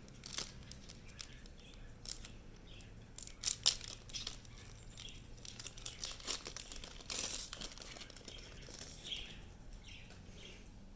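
Pokémon trading cards and a booster-pack foil wrapper being handled: soft crinkling and scattered light card snaps and flicks, with a brief burst of rustling about seven seconds in.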